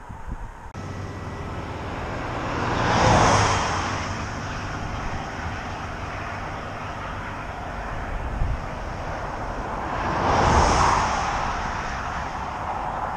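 Highway traffic passing by: two vehicles go past close, about three seconds in and again near ten seconds in, each swelling and fading over a couple of seconds, over steady road noise.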